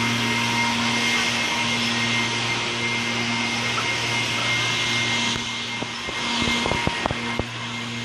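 Steady mechanical hum with a fan-like hiss from a running motor, and a few sharp clicks near the end.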